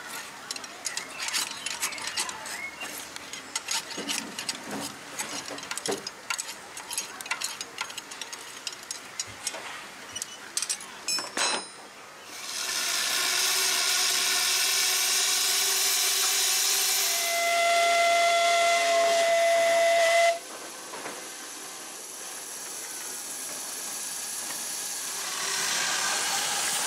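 A miniature steam locomotive: after some irregular clicks and knocks, steam starts hissing loudly and steadily about 12 seconds in. Its whistle sounds once, a steady note of about three seconds over the hiss, then the hiss drops back and slowly builds again.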